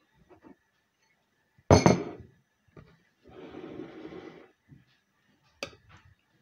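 Metal spoon working in a ceramic bowl of dumplings in broth: scattered clinks against the bowl, one louder sharp knock about two seconds in, and a stretch of rustling noise in the middle.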